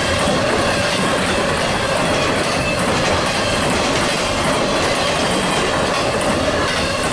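Double-stack intermodal container cars of a freight train rolling past close by: a loud, steady sound of steel wheels on rail, with a faint steady whine running through it.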